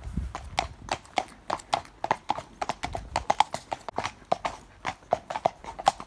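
Hooves of two horses striking a tarmac lane: a steady, even run of sharp clip-clops, about four to five a second.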